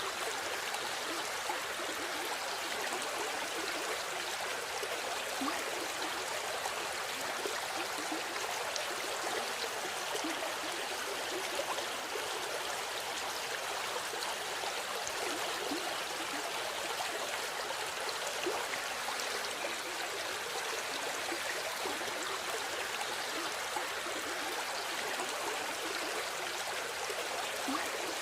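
River water flowing in a steady, even rush, with small gurgles and splashes.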